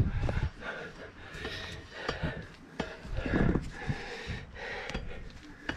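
A runner's hard, heavy breathing in irregular puffs, with scattered short knocks.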